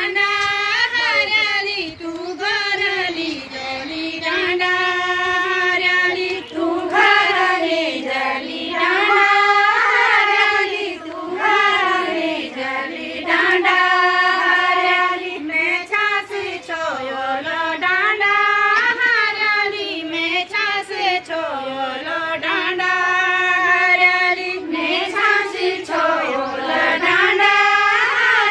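Women singing a Garhwali chanchari folk song together in unison, unaccompanied, repeating a short melodic phrase with long held notes.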